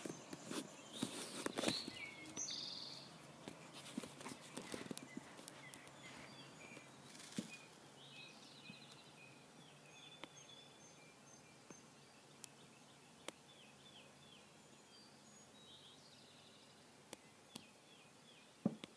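Faint birdsong: songbirds calling, with a run of short repeated chirps in the second half. Rustling and clicking handling noise near the start, and a few sharp clicks near the end.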